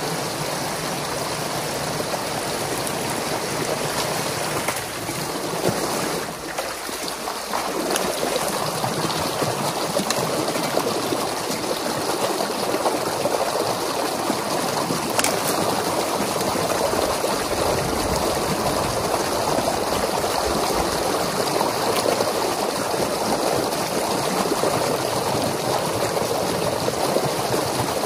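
Water rushing and splashing through a breach in a beaver dam, a steady flow draining the dammed-up water into the channel below.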